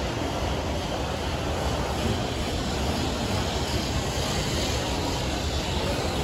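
Steady low rumble and hiss of a large airport terminal hall, with no distinct sounds standing out.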